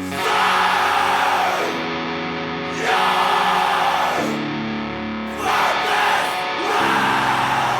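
Heavy, distorted electric-guitar metal music. Held low chords alternate with loud crashing sections where the full band and cymbals hit, four times.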